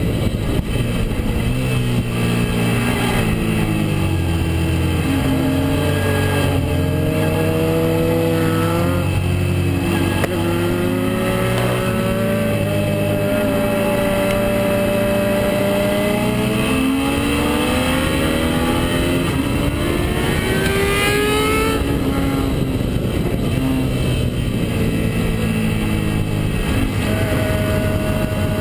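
Suzuki SV650S's 645 cc V-twin engine heard from an onboard camera at track speed, its revs rising and falling steadily through corners and gear changes, with a steep climb about twenty seconds in that breaks off near twenty-two seconds. Wind noise runs under the engine.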